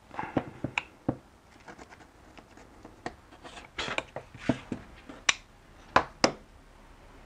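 Shift linkage parts (shift rod and shift arm with bushings) clicking and clattering as they are handled and fitted together on a workbench. A string of light clicks and short rustles, with three sharp louder clicks in the second half.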